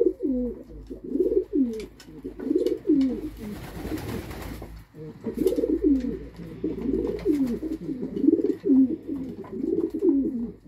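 Racing pigeons cooing over and over, low calls that swoop in pitch, with faint clicks of beaks pecking grain from a wooden feeder trough. There is a brief rustle about four seconds in.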